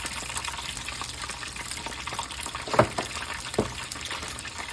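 Food sizzling steadily in hot oil, with two sharp knocks partway through.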